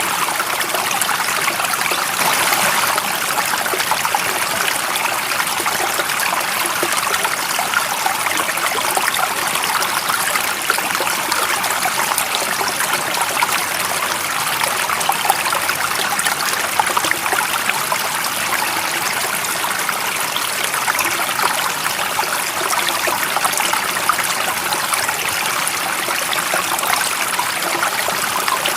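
A stream's water running and splashing steadily, an even rushing sound without change.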